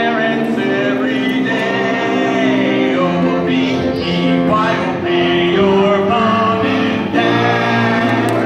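A choir of young children singing a song with musical accompaniment, holding notes and moving steadily from note to note.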